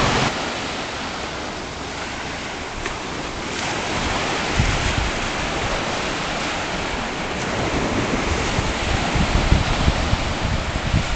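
Surf breaking on a beach, with wind buffeting the microphone in gusts that grow stronger in the second half.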